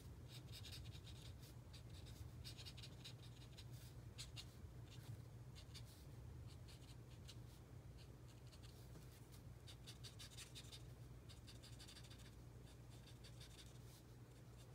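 Stampin' Blends alcohol marker tip stroking across cardstock: faint, quick, irregular scratchy strokes over a steady low hum.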